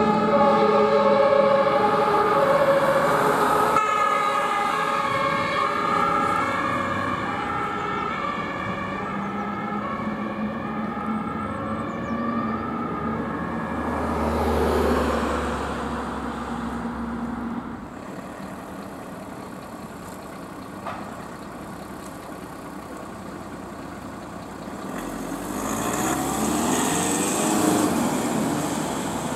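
German two-tone emergency vehicle siren (Martinshorn) switching back and forth between two pitches, loud at first and fading away as the vehicle moves off. Vehicles then drive past, one with a low engine rumble about halfway through and another swelling up and passing near the end.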